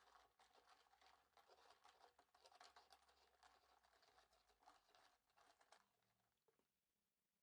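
Near silence: faint rustling and light crackly ticking, like handling something small, that fades out near the end.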